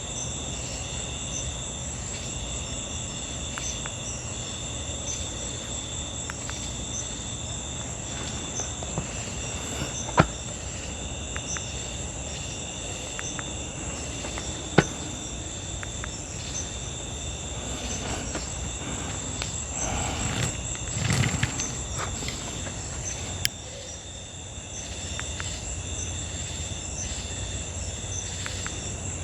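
Crickets and other insects chirping steadily, a pulsing chirp under a high continuous trill. Sharp snaps cut through about ten and fifteen seconds in, with a brief rustle a little after twenty seconds.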